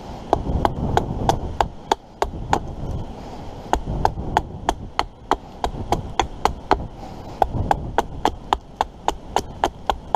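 Axe chopping wood in quick, light, regular strokes, about three a second, with a brief pause about three seconds in and another near seven seconds.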